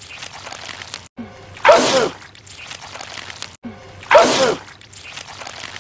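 A man's loud sneeze, heard twice about two and a half seconds apart, each with a short breathy wind-up just before it. The two sneezes are identical, the same sneeze repeated over and over with sharp cuts between.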